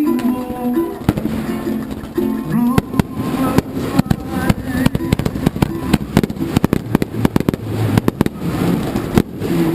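Fireworks going off in a rapid string of sharp pops and bangs from about a second in, with music playing underneath as part of a pyromusical.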